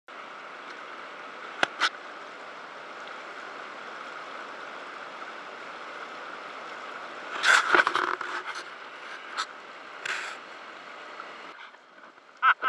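Kayak paddling on a river: a steady hiss of water and moving air, with two sharp knocks near two seconds in and a cluster of louder paddle splashes about seven to eight seconds in, then a few more single splashes.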